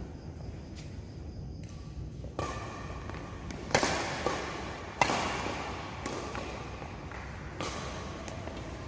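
Badminton rackets striking a shuttlecock in a doubles rally: about five sharp hits echoing in a large hall, the loudest about four and five seconds in.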